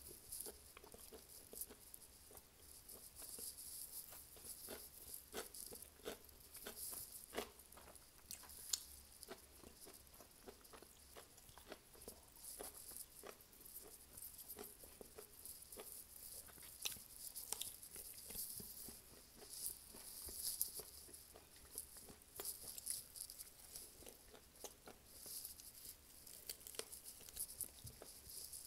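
Close-up eating sounds of fried chicken wings eaten by hand: chewing and crunching with a scattered run of small clicks and mouth smacks, and fingers pulling the meat apart.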